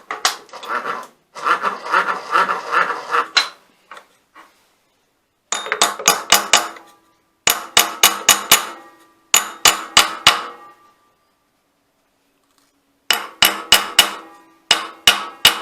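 Hammer tapping a small steel workpiece down onto parallels in a milling-machine vise, to seat it so the parallels can't move. The taps come in quick runs of four to six with short pauses between, each with a brief metallic ring. They follow about three seconds of denser metallic clattering.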